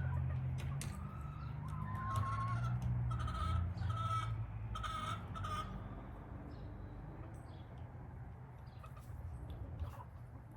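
Chickens clucking: a run of short calls in the first half, then only scattered faint ticks, over a steady low rumble.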